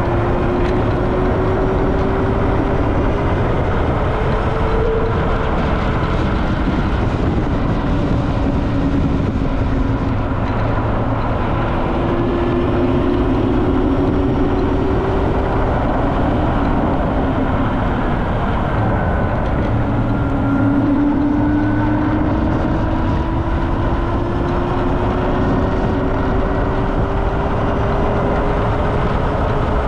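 Riding a Super Soco TC Max electric motorcycle: steady wind rush and road noise, with a thin motor whine that climbs in pitch three times as the bike accelerates.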